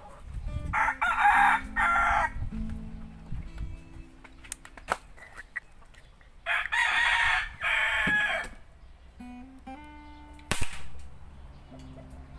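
A rooster crows twice, each crow a loud drawn-out call in two parts. About ten and a half seconds in, a single sharp crack: an air gun shot through the chronograph.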